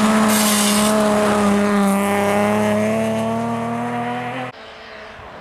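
Rally car, a green BMW 3 Series (E36), driving flat out past on a gravel stage, its engine held at high revs and slowly rising in pitch as it accelerates. The sound cuts off suddenly about four and a half seconds in, leaving only a faint engine in the distance.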